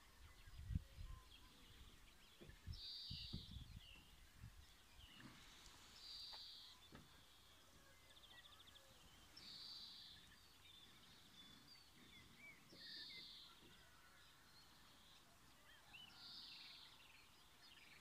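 Faint bird calls: a short buzzy call repeated about every three and a half seconds, with small chirps in between. A few soft low thuds come in the first few seconds.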